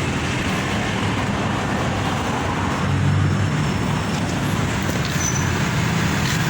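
Highway traffic passing: steady road noise, with a low engine rumble that swells about halfway through.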